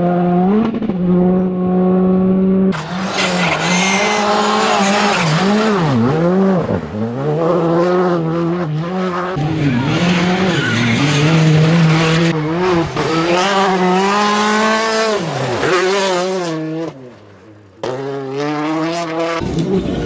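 R5 rally cars, a Hyundai i20 R5 and a Ford Fiesta R5 among them, driven flat out on a gravel stage. Their turbocharged four-cylinder engines rev up and drop back again and again through gear changes and lifts, with gravel spraying from the tyres. Several passes are joined by abrupt cuts, with a short lull near the end before another car comes.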